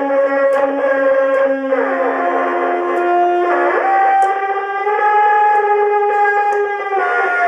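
Synthesizer tones from a katana rigged as a synthesizer: buzzy held notes, several at once, that slide to new pitches every second or two, with a few faint clicks.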